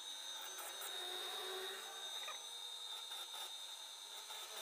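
Pillar drill press running faintly with a steady high whine, its 12 mm bit countersinking screw holes in a steel plate.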